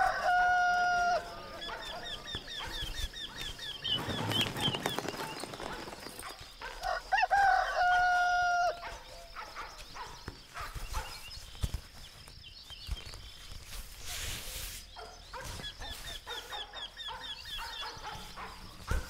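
Rooster crowing twice, about seven seconds apart, each crow ending in a long held note, with softer farmyard calls in between.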